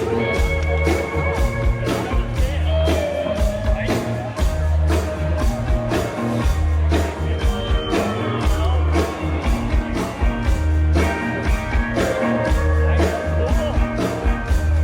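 Live rock band playing: electric guitars and bass over drums keeping a steady beat.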